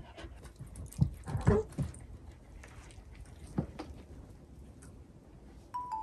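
Shiba Inu giving a brief whine about a second and a half in, among a few light knocks and steps. Marimba-like music starts near the end.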